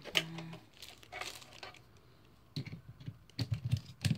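Handling noises from small plastic parts and packaging: a scatter of sharp clicks and taps with some crinkling, thickest in a quick run during the second half.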